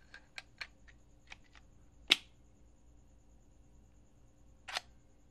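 Metal clicks of a homemade pistol's mechanism being handled and loaded: a run of small clicks, one sharp loud snap about two seconds in, and a quick double click near the end.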